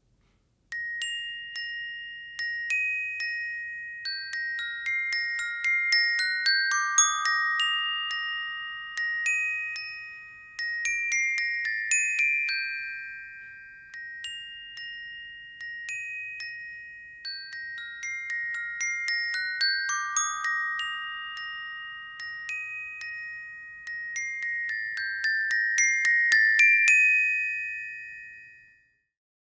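Xylophone struck with hard 1-inch ebonite mallets (Dragonfly EB1), playing a quick melodic passage of bright, short-ringing notes high in the instrument's range. The passage comes in two similar phrases and ends on a last note that rings and fades away.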